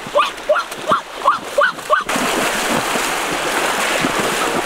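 A dog barking over and over, about two and a half barks a second, until about two seconds in, when it gives way abruptly to the steady rush of river water.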